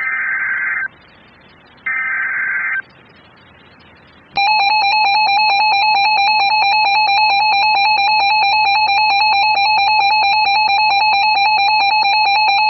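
Emergency Alert System SAME header data bursts, two short buzzy electronic warbles about a second apart, followed about four seconds in by the steady, piercing attention-signal tone announcing a weather-radio alert.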